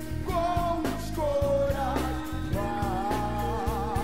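Background music: a song with a singing voice over guitar, bass and a steady drum beat.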